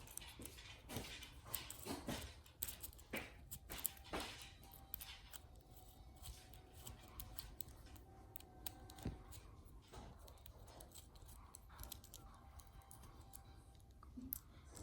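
Faint, irregular clicking and scraping of a small hand driver and parts while the screws on an RC crawler's portal axle housing are tightened, busiest in the first few seconds.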